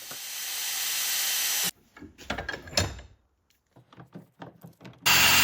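An electric power tool running with a whir that grows louder, cutting off suddenly after about a second and a half, as the hole for a new kickstand rivet is drilled out. Then clicks and knocks of metal parts and tools being handled, and near the end a power tool starts up again, loud and steady with a high whine.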